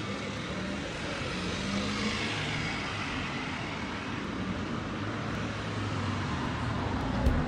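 Steady street traffic noise, a continuous rush of passing cars with no distinct events.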